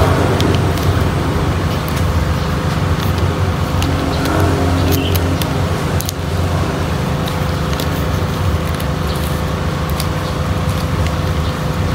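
A steady low mechanical hum with a faint steady whine above it, and scattered light clicks and rustles of paper being handled.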